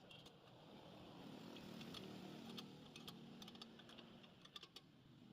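Faint scattered clicks and light taps over a low hum that swells in the middle.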